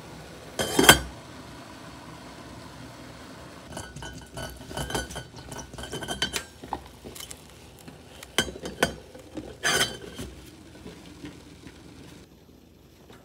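Stainless steel pot lid set down on a saucepan with a ringing clink about a second in. Then a run of clinks and rattles as the lid is lifted and reseated on the pot rim, loudest around 8 to 10 seconds in.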